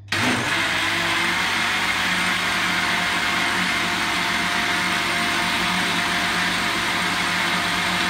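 Countertop blender switched on right at the start, its motor then running steadily as it mixes a runny cornmeal cake batter.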